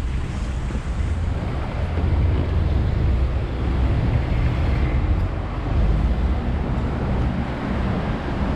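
Wind rumbling on the microphone over steady vehicle noise.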